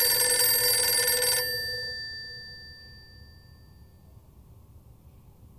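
Rotary-dial telephone's bell ringing: one long ring that stops about a second and a half in, after which the bell tones fade away over the next couple of seconds.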